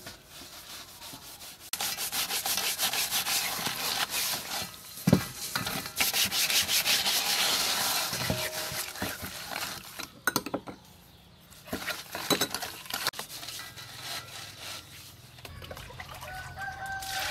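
Hands scrubbing a whole snakehead fish with coarse salt in a stainless steel bowl: gritty rubbing and scraping of slimy skin and salt against the metal, in long stretches with short pauses. A rooster crows near the end.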